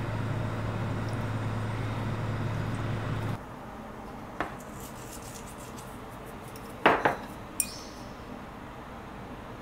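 A steady low hum for about the first three seconds, cutting off sharply. Then a few light kitchen clinks as salt and mirin are added to raw shrimp from seasoning containers with a spoon, the loudest a double clink about seven seconds in and a brief ringing one just after.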